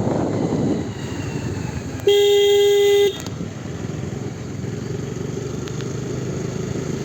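A vehicle horn sounds once, a single flat-pitched toot lasting about a second, over steady engine and road noise.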